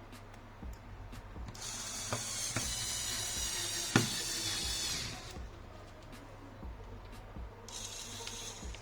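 Electric drill motor running in two spells, about three and a half seconds and then about one second, with a sharp click partway through the first. The drill runs again after its carbon brushes were replaced.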